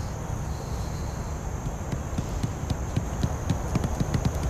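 Hammer tapping a soil-sampling ring down into dry, sandy ground: a quick run of light knocks, about four a second, starting about two seconds in.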